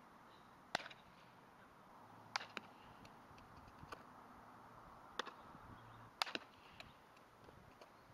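Sharp cracks and pops of a softball being hit and fielded during infield practice: about six short impacts, some in quick pairs, over a faint outdoor background.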